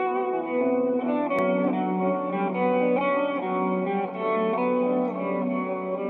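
Electric guitar played through a US DLX 1x12 speaker cabinet, a melodic line of held notes that change every half second or so.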